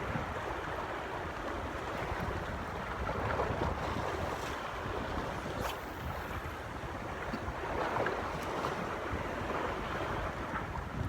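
Water waves washing steadily, with wind buffeting the microphone as a low rumble; the wash swells a little about three and eight seconds in.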